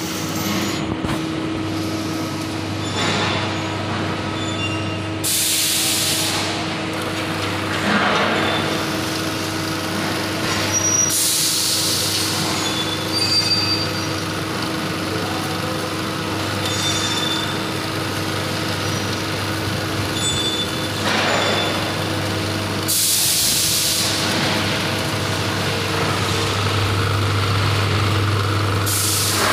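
Electric-motor-driven hydraulic compression testing machine running with a steady hum while it loads a paver tile, with short hissing bursts about five, eleven and twenty-three seconds in.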